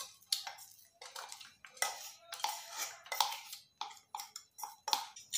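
Steel mixer-grinder jar knocking and scraping against a stainless steel bowl as coarsely ground paste is emptied out: a quick, irregular run of metal-on-metal clinks.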